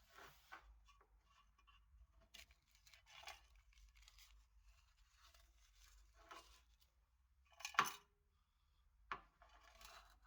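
Small scraping, rustling and handling sounds from hand work on an antique brass jewelry box, with a sharp click near 8 s and a smaller one about a second later.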